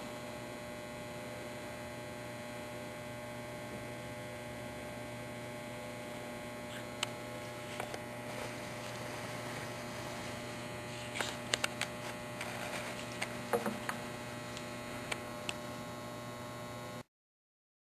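Steady electrical mains hum, with scattered small clicks and light scrapes in the second half. The sound cuts off suddenly near the end.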